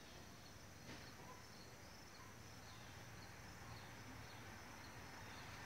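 Near silence: faint outdoor background with faint, repeated high chirping.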